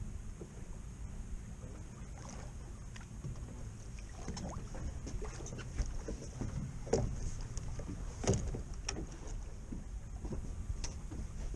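Wind rumbling on the microphone on an open boat deck, with scattered short knocks and clicks in the middle, the loudest about seven and eight seconds in.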